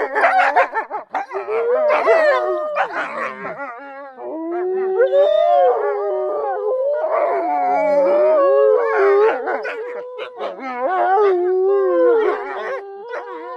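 Several wolves howling together. There are short yips and barks for the first few seconds, then from about four seconds in long wavering howls at different pitches overlapping in chorus.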